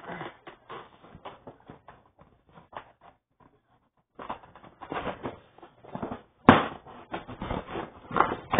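Toy packaging being handled and opened: irregular crackling and clicking of plastic and cardboard, with a brief pause before it gets busier, and one sharp snap about six and a half seconds in.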